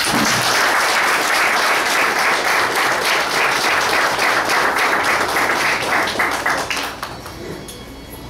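Audience applauding: dense clapping from a roomful of people that starts suddenly, holds steady, then thins out and fades after about seven seconds.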